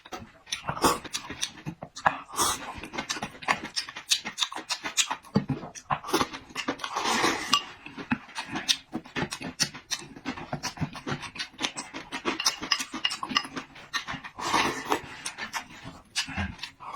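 Close-miked eating: wet chewing and lip smacking in a quick, irregular run of small clicks, with two longer, noisier stretches about seven and fourteen and a half seconds in.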